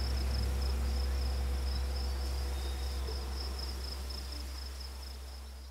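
Crickets chirping in a steady high trill over a low steady hum, the whole fading out gradually.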